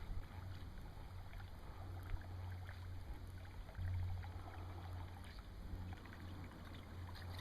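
Steady low hum with faint water lapping and small ticks, the hum getting louder about four seconds in, as from a small boat on the water.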